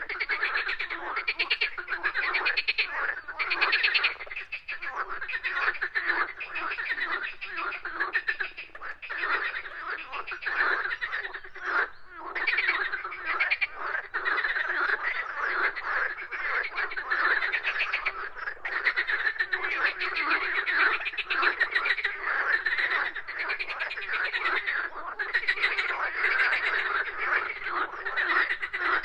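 A chorus of many frogs croaking together in a dense, unbroken wall of overlapping rapid pulsed calls.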